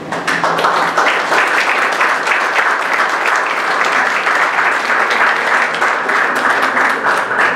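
Audience applauding: dense, steady clapping that starts abruptly and keeps up evenly.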